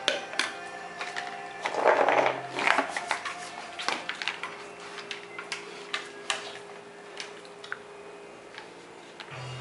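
Labrador's claws clicking irregularly on a ceramic tile floor as she gets up and walks, with a louder scuffling noise about two seconds in.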